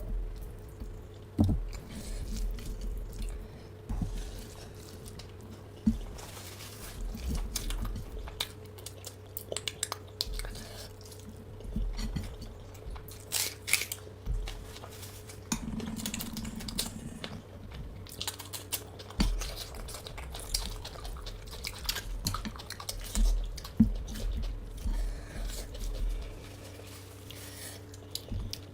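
A person chewing and crunching a meal of fried fish and vegetables with rice, with small clicks and clinks of a plate or cutlery now and then, over a steady low hum.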